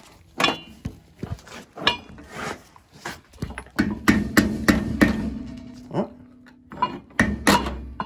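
Hammer striking a chisel on metal, about ten sharp knocks at irregular spacing, some ringing briefly: chiseling away a damaged, cross-threaded thread so the fitting can be threaded on straight.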